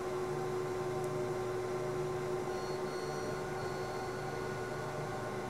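Steady electrical hum over an even hiss: background room tone, with no distinct events.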